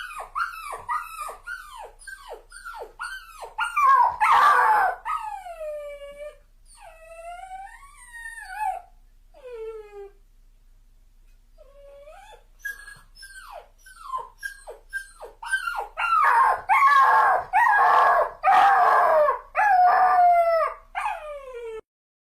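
Dog crying and whining: quick runs of short, high whimpers that fall in pitch, with louder, longer wailing howls between them. The first wail comes about four seconds in and a second run starts about sixteen seconds in, with a short pause near the middle.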